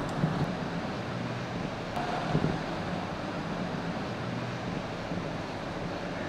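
Mercedes-Benz Citaro city bus driving past, a steady diesel engine hum with road and wind noise, swelling briefly about two and a half seconds in.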